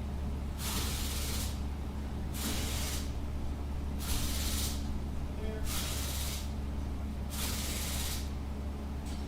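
Five short bursts of hiss, spaced evenly about one every 1.7 seconds, over a steady low hum.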